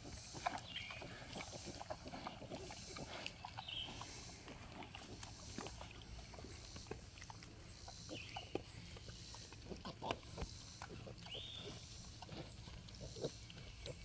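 Sow and piglets rooting in dirt: scattered snuffles, crunches and soft grunts, with a few short high squeaks.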